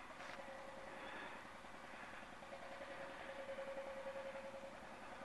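Faint, steady hum of a distant engine over quiet outdoor background noise, fading out near the end.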